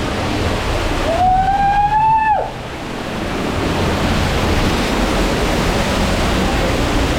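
Steady rushing of a cave waterfall. About a second in, a person gives one long whooping call that rises slightly and breaks off.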